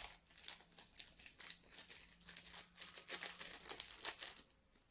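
Thin clear plastic bag crinkling between the fingers as it is squeezed and shaken to empty out glitter: a quick, irregular run of crackles that stops shortly before the end.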